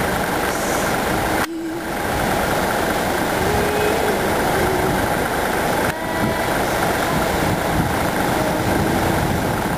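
Steady engine noise with a broad rumble and rush, dipping briefly about a second and a half in and again about six seconds in.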